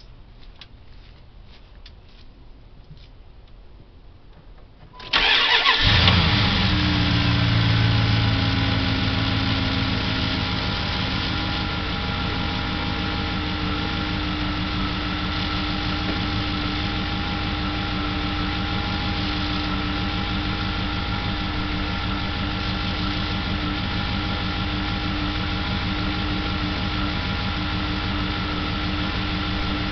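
Car engine started about five seconds in after a few faint clicks, running at a raised speed that settles within a few seconds into a steady idle. The engine has developed a strange knock that is being diagnosed.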